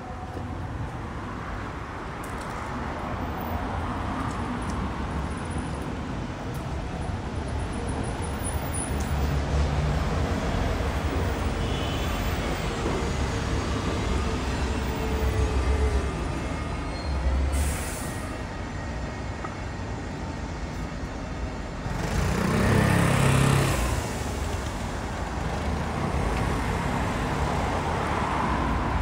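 Street traffic: motor vehicles running and passing with a low engine rumble. A short hiss comes a little past the middle, and the loudest moment, a vehicle going by, comes about three-quarters of the way through.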